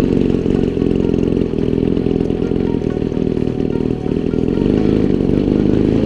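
Model aeroplane's small combustion engine running steadily just after starting, a little louder about two-thirds of the way through.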